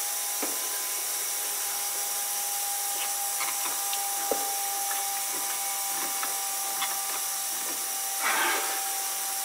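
FASS fuel-air separation lift pump running with a steady whine, priming the empty fuel lines. A few small clicks and knocks come from hands working at its filter housing, with a brief rustle near the end.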